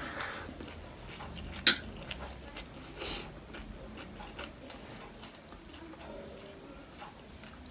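Close-miked eating of panipuri: scattered small mouth clicks, a sharp click just under two seconds in, and a short louder noisy burst about three seconds in.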